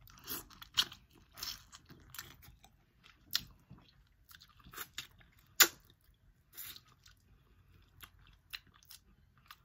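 Eating a boiled crab leg: irregular wet chewing and biting with scattered crackling clicks, the sharpest one about five and a half seconds in.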